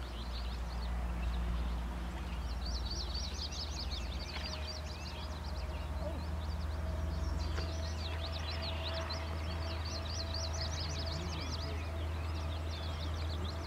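Songbirds chirping and singing in a busy chorus of quick high chirps, over a steady low rumble. A faint steady hum comes in about four seconds in.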